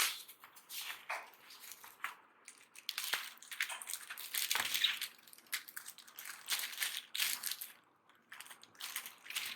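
Plastic packaging crinkling and rustling in irregular bursts as a new laptop keyboard is unwrapped.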